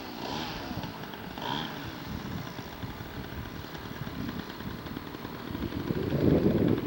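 Small model-aircraft engine running faintly, its pitch rising and falling briefly in the first couple of seconds. Near the end, loud wind gusts buffet the microphone.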